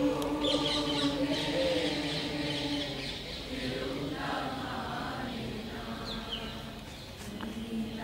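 A group of schoolchildren singing together in unison, long held notes for the first few seconds, then fainter. Birds chirp briefly over it about six seconds in.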